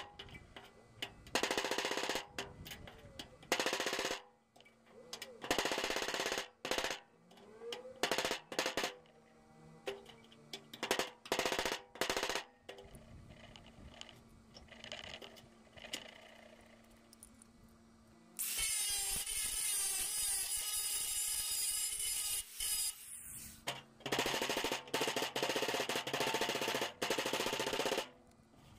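MIG welder welding steel on a car door, crackling in short bursts of about a second each, then in two longer continuous runs of about four seconds each near the end.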